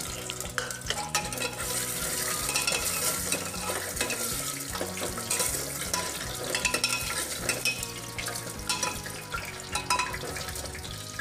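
Arbi (taro root) pieces sizzling as they fry in hot mustard oil in a pressure cooker, with a steel ladle clinking and scraping against the pot as they are turned.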